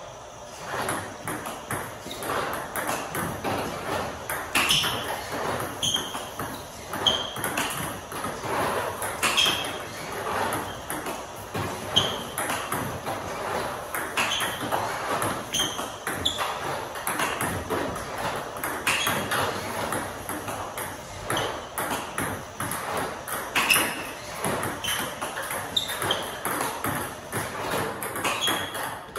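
Table tennis drill against a Joola Infinity ball robot: plastic balls fired by the robot clicking off the table and cracking off the paddle in a steady repeating rhythm, about one stroke a second.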